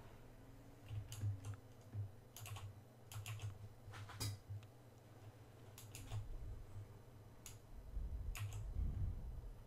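Computer keyboard and mouse clicking: about a dozen irregular, scattered key presses and clicks over a steady low hum.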